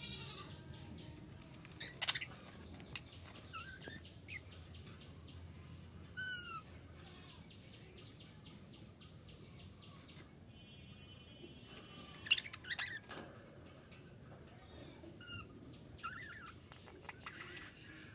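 Budgerigars chirping: scattered short chirps and quick whistled pitch glides, with a brief buzzy note and one sharp, loud chirp about twelve seconds in.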